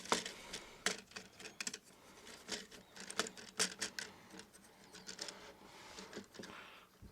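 Small plastic clicks and taps of Lego bricks and a minifigure being handled and dusted, coming irregularly, with a brief soft rustle a little after six seconds.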